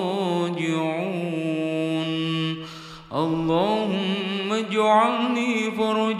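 A solo voice chanting an Arabic supplication (dua) in long, drawn-out melodic notes, with a short break about three seconds in.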